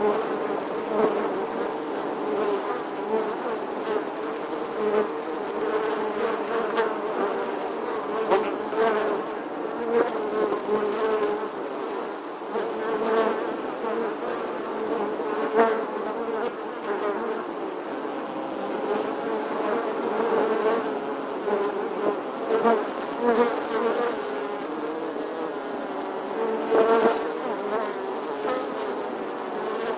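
A bee buzzing without a break, its pitch wavering up and down and its loudness swelling and fading as it moves about.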